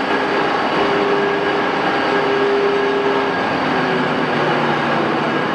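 Axelson heavy-duty engine lathe running with its spindle turning at 274 RPM: a steady mechanical drive noise with a faint steady whine.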